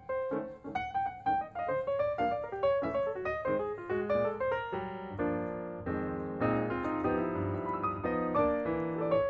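Background piano music: a quick melodic line of single notes, turning to fuller sustained chords about halfway through.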